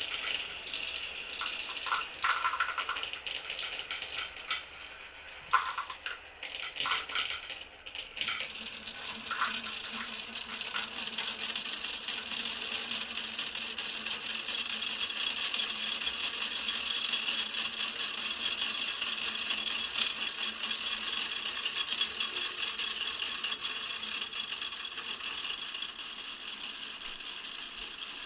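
Marbles rolling and clicking on a wooden marble run: scattered separate clicks and knocks at first, then from about eight seconds in a dense, steady rattle of many marbles rolling together.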